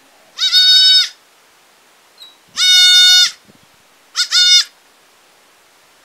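Goat kid bleating three times in a high-pitched, steady voice, each bleat under a second long.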